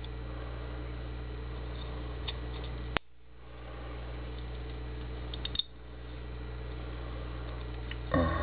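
A few faint, light clicks of small metal lock parts being handled over a steady background hum, with one sharp click about three seconds in.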